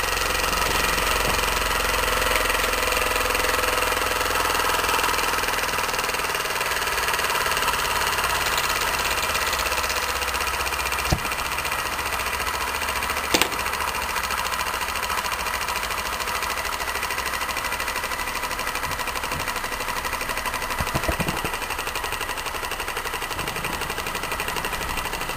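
Small pressurized rhombic-drive Stirling engine with its generator running down after its burner flame has gone out. Its running note drops in pitch over the first few seconds and the sound slowly fades, with two sharp clicks partway through.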